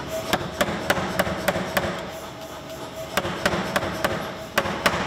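Power hammer striking a red-hot carving-axe head between its dies, in short runs of sharp blows about three a second, with a pause of over a second after the first run.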